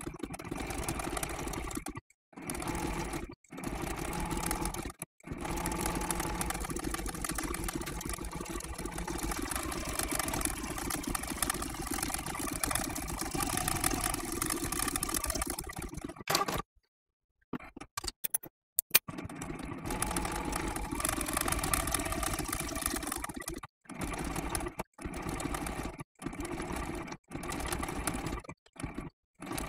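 Electric sewing machine sewing a blanket stitch around appliqué edges. It runs in spells of a few seconds, stopping briefly and starting again. There is a longer stop with a few sharp clicks about 17 to 19 seconds in, and shorter stop-start runs near the end.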